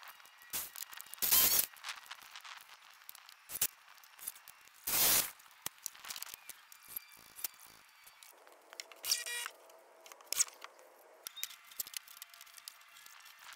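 A thin plywood strip and wooden frame being handled and fitted together: scattered knocks and clicks, with two brief scraping rushes, about a second in and about five seconds in.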